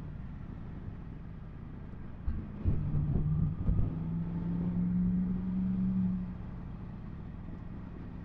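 Yamaha MT-10 SP's crossplane inline-four engine running on the move under a low rumble. About two seconds in it gets louder as the throttle opens, holding a steady note that steps up slightly in pitch, then eases back a little after six seconds.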